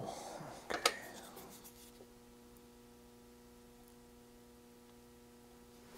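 A light rustle of handling, a sharp click about a second in, then a faint steady electrical hum.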